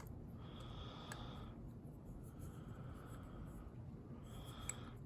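Faint scraping with a few small sharp clicks as tweezers work a small actuator part into a disassembled padlock body.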